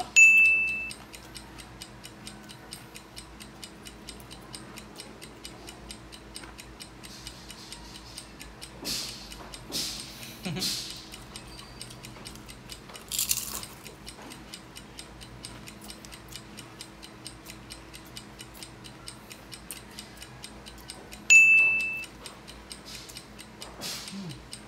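Steady ticking of a countdown timer, with a short high beep just after the start and another near the end; a few brief, louder noises come in between.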